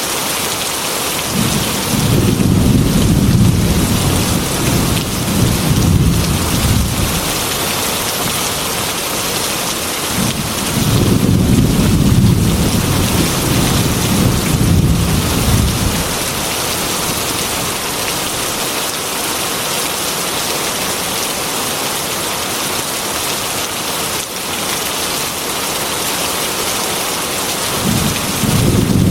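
Heavy rain falling steadily, with two long, low thunder rumbles of several seconds each and a third beginning near the end.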